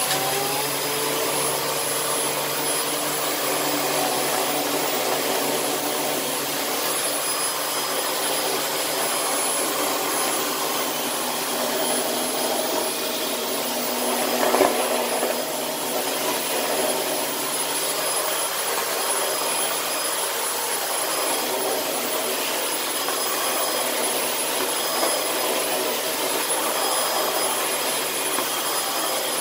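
Dyson DC18 Slim upright vacuum cleaner running steadily with its brush roll spinning: a constant rush of air under a thin, high, steady whine, with one brief knock about halfway through. The owner thought this vacuum sounded as if it had water damage.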